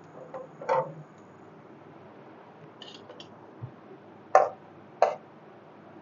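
A spoon knocking against an aluminium kadhai while stirring cumin and dried red chillies in hot oil: a few short metallic knocks, the two loudest about half a second apart near the end.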